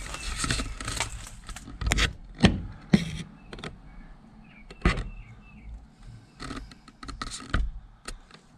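Irregular crunches and knocks of footsteps on leaf litter and debris and of the camera being handled, the sharpest about two and a half and three seconds in, with a few faint bird chirps between them.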